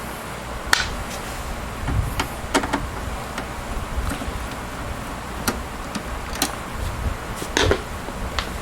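Scattered sharp clicks and light knocks from a Phillips screwdriver and small screws being handled against a desktop PC's metal case, over a steady low rumble.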